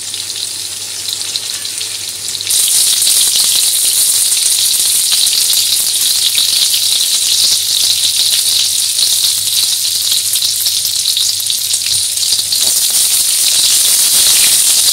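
Pieces of pointed gourd (parwal) frying in hot mustard oil in a kadhai: a steady, dense crackling sizzle that gets louder about two and a half seconds in.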